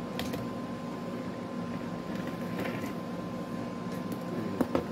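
A glass plate slid across the floor, with a few light clicks and knocks, over a steady low hum.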